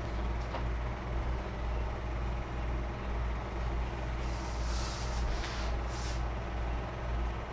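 A steady low hum, with a short burst of high hiss about four to six seconds in.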